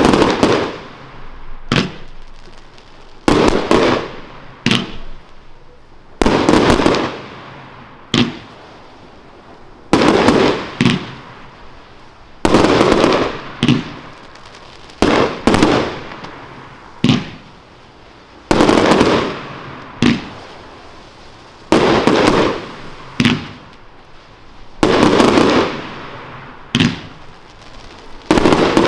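Aerial fireworks bursting one after another, about twenty sharp bangs spaced a second or two apart. Each bang trails off as it fades.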